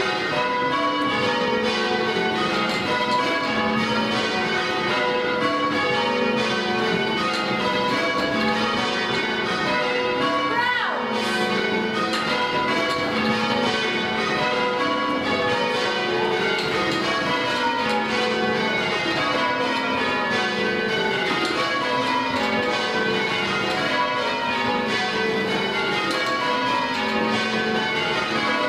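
Swan Bells tower bells rung full-circle in change ringing: a steady, even stream of strikes from many bells, their order shifting from row to row as changes are rung rather than plain rounds.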